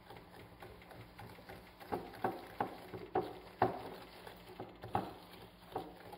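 Metal balloon whisk beating egg and sugar in a glass bowl: a faint soft stirring at first, then from about two seconds in, regular clinks of the wires against the glass, about two a second.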